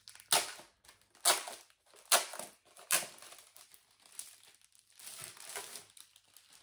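Plastic outer sleeve of a vinyl LP crinkling as the record is handled and taken out of it: four sharp rustles less than a second apart, then softer rustling near the end.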